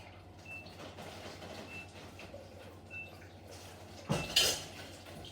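Kitchen tap running as something is rinsed under it, with a louder burst of splashing noise about four seconds in.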